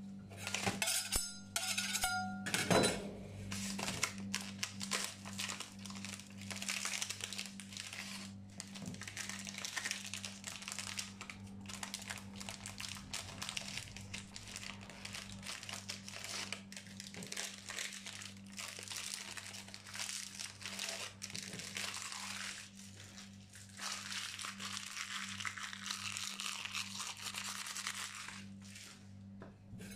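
Plastic wrappers of Nutella B-ready wafer bars crinkling and crackling as they are torn open and peeled off by gloved hands, over a steady low hum.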